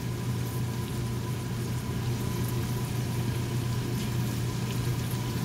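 Chicken pieces frying in a pan, a soft sizzle over a steady low hum from the kitchen.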